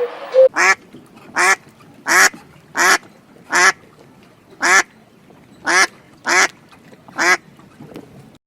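A duck quacking about nine times in a row: short, separate quacks a little under a second apart.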